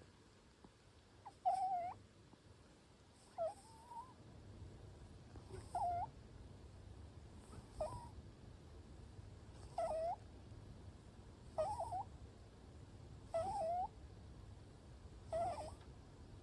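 Munchkin cat snoring in its sleep: a short, high-pitched squeaky whistle on each breath, about every two seconds, eight times, over a faint low breathing rumble.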